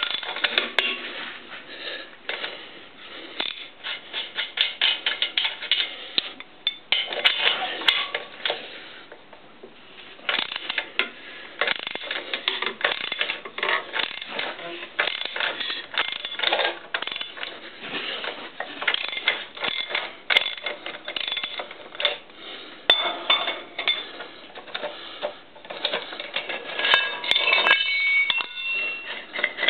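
Ratchet wrench clicking in rapid runs with short pauses as it turns the nut on an M16 threaded rod, drawing a repair bushing into the bore.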